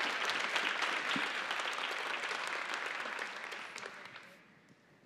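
An audience applauding, the clapping dying away about four seconds in.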